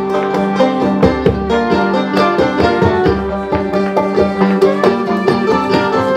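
Live folk band playing an instrumental tune: quick plucked-string notes over a held low note.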